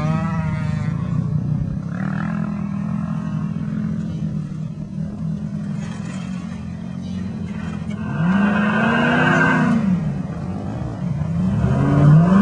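Vehicle engine running steadily, then revving up and back down about eight seconds in and rising again near the end, as the vehicle is driven while stuck in desert sand.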